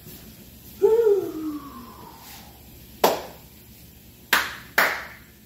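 Jars and bottles in a refrigerator's door shelves knocking and clinking sharply as they are handled, once about three seconds in and twice close together near the end. About a second in there is a short tone that falls in pitch.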